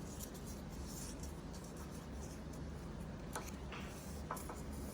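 Soft rustling and crinkling of a sheet of A4 paper being folded and creased by hand, with a few faint crinkles a little past halfway.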